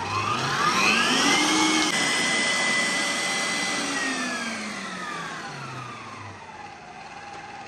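Stand mixer motor running with the flat beater, creaming butter and sugar. Its whine rises as it speeds up, holds steady for a couple of seconds, then falls as it slows down near the end.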